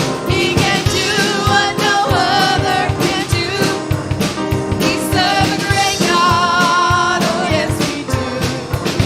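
Live worship band and singing: a voice sings a gospel song over drums and instruments with a steady beat.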